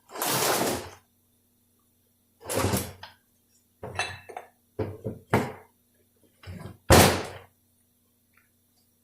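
Metal transmission parts clunking and clinking as they are handled and set down on a workbench, in about six separate knocks over several seconds.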